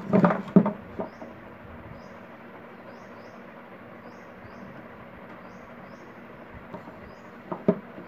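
Knocks and clatter of a table fan motor's metal body handled on a wooden table while a capacitor is wired to it: a quick cluster of knocks in the first second and two more near the end.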